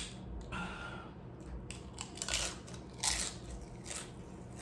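Crunching of nacho chips being chewed, in a run of irregular crisp crunches, the loudest about two and three seconds in.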